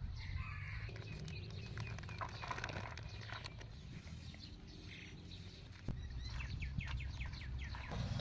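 Birds chirping in quick runs of short, falling notes, one run in the first few seconds and another near the end, over a steady low rumble.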